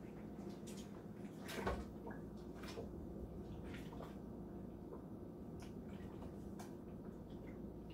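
Faint handling of wet linen pants being pushed down into a sink of dye water: a few soft knocks and splashes, the loudest about a second and a half in, over a steady low hum.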